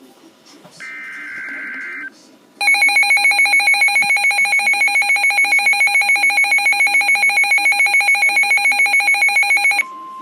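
Emergency Alert System broadcast tones: a short burst of the screeching SAME data header, then about seven seconds of the loud, harsh, pulsing EAS attention signal, which near the end gives way to a single steady tone.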